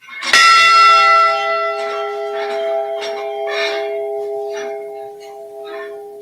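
A memorial bell struck once and left ringing, its clear tones slowly fading: a single toll in memory of a lost crew member whose name has just been read.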